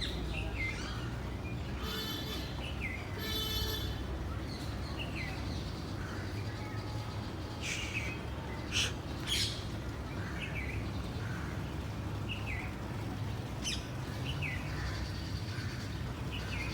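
Birds chirping: scattered short, downward-sliding chirps, with two buzzier calls about two and three and a half seconds in, over a steady low background hum.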